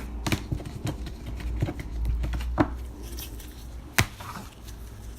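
Scattered light taps and clicks of things being handled on a surface, with a sharper click about four seconds in.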